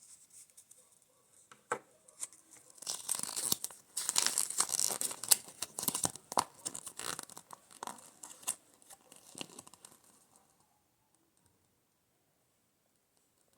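Toy packaging being torn open and crinkled by hand: a run of tearing and crackling with sharp clicks, stopping about ten seconds in.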